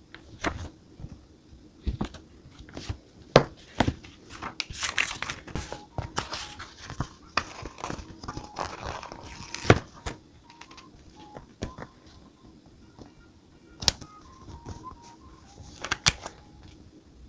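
Paper and sticker sheets being handled: crinkling and rustling, denser in the middle, with scattered sharp taps and knocks on the desk. Faint background music runs underneath.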